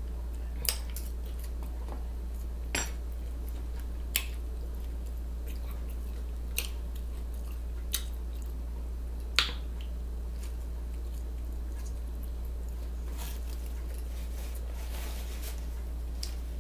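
Close-up chewing and mouth sounds while eating a sausage sandwich, with a handful of sharp, irregular clicks and smacks. A steady low hum runs underneath.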